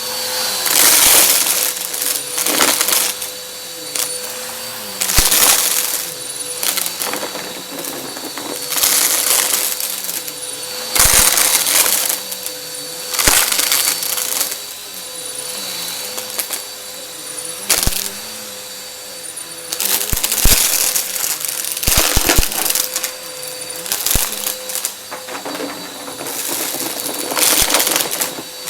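Vacuum cleaner running with a steady motor whine while crunchy confetti debris crackles up the intake in repeated bursts every second or two, its dirt bin overflowing.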